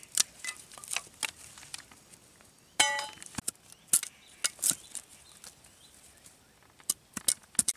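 Curved machete blades cutting and scraping thin wooden sticks: irregular sharp cuts and knocks, with one loud metallic clink that rings briefly about three seconds in.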